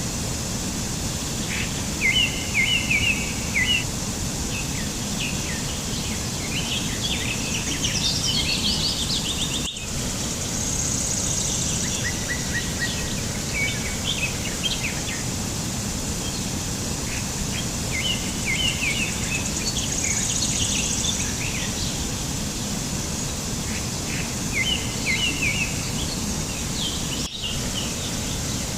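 Several small birds chirping and twittering in short, quick phrases over a steady background hiss. The same run of calls comes round twice, as in a looped recording.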